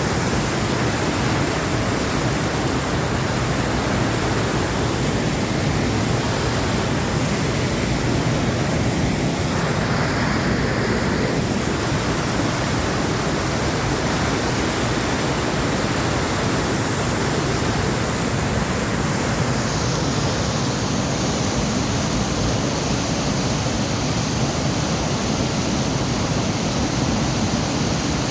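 Waterfall in a mountain gorge: water falling and rushing in a steady, unbroken roar-like hiss, with a slight brightening of the high hiss about two-thirds of the way in.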